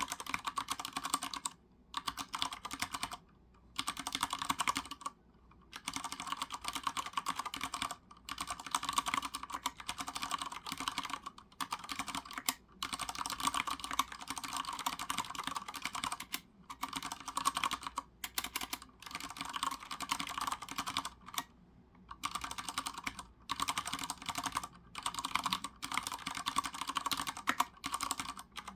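Typing on a Ducky Shine 3 Yellow Edition mechanical keyboard with Cherry MX Brown tactile switches: fast, continuous key clacking in runs of several seconds, broken by brief pauses.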